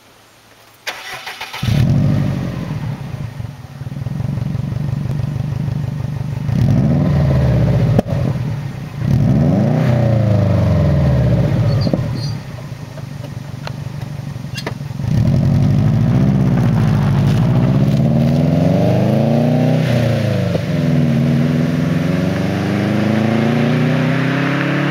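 2004 Subaru WRX's turbocharged flat-four with an aftermarket Tsudo cat-back exhaust and TurboXS uppipe, cranked by the starter and catching about two seconds in, then idling and blipped several times, its pitch rising and falling with each rev. Near the end it pulls away, the pitch climbing steadily as it accelerates.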